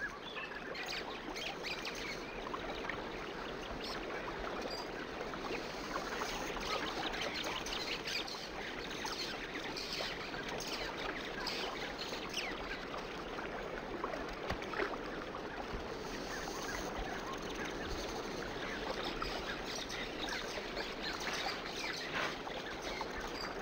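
Crocodile hatchlings chirping: many short, high calls scattered throughout, over a steady wash of shallow moving water.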